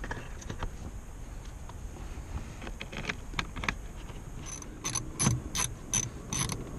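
Hand ratchet driving in a small 7 mm-head screw, faint handling and clicks at first, then a steady run of pawl clicks about three a second from about two-thirds of the way in as the screw is run down.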